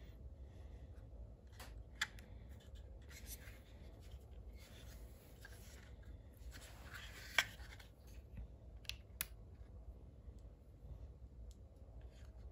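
Hard plastic casing of a Milwaukee L4 CLL laser level being handled: rubbing and scraping of plastic with a few sharp clicks, the loudest about seven seconds in.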